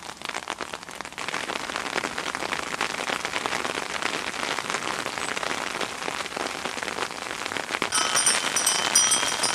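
Graupel (snow pellets) falling thickly onto gravel ground, a dense crackling hiss of countless small ticks. Near the end, high ringing tones join in.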